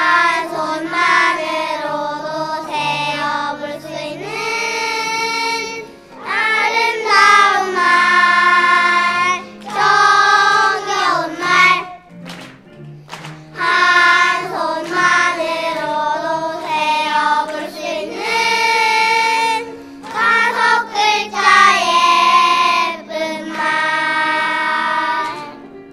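Children's choir singing a congratulatory wedding song together, in sung phrases with short breaks between them.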